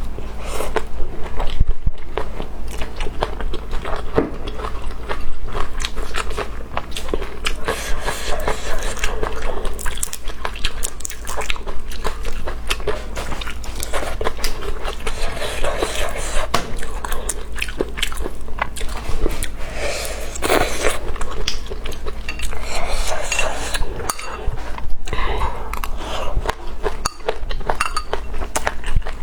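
Close-miked eating of rice mixed with bird's eye chilies: steady chewing and mouth smacking with many small crunches and clicks, and now and then a utensil clink.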